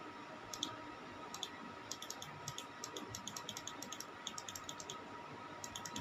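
Computer mouse clicking repeatedly: two single clicks, then a quick run of several clicks a second from about two seconds in, as the pointer clicks down through a scrolling list.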